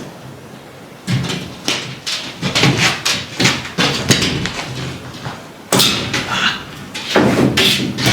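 A sheet of plywood knocking and scraping against wooden attic framing as it is pushed and wrestled into place: an uneven run of thumps and sliding scrapes.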